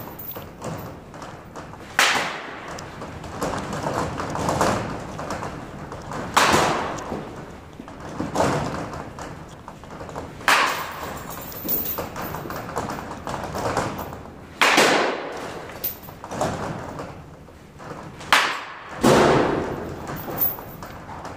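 Baseball bat striking pitched balls, five sharp cracks at about four-second intervals, each followed a moment later by a softer thud.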